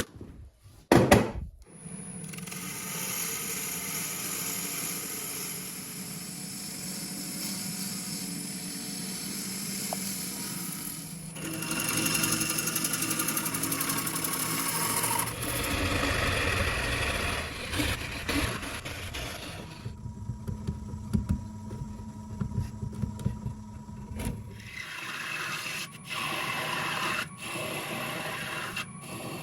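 Wood lathe running with a turning tool cutting and scraping the spinning wood. The motor hum and cutting noise change abruptly several times.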